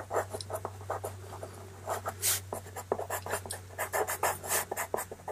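White pastel pencil scratching across pastel paper in many quick, short, uneven strokes, over a low steady hum.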